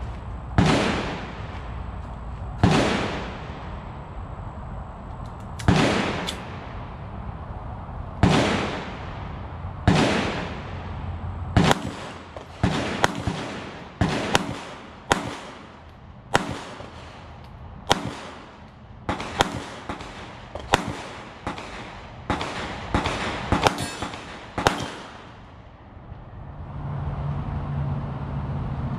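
A string of pistol shots fired at steel targets, each crack followed by a short echoing tail. They come a few seconds apart at first, then faster from about twelve seconds in, and stop about twenty-five seconds in.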